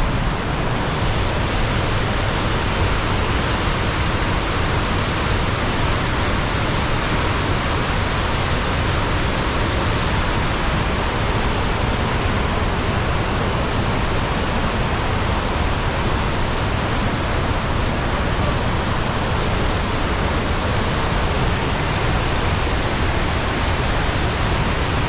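The Rhine Falls, a large river waterfall, rushing: a loud, steady, unbroken roar of falling water.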